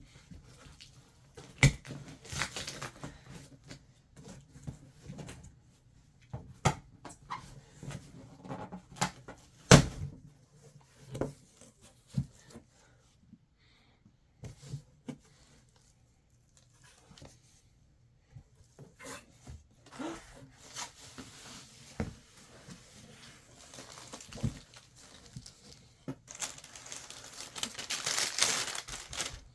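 A parcel being handled and opened by hand: scattered knocks and taps on the box, with tearing and crinkling of packing material that grows loudest near the end.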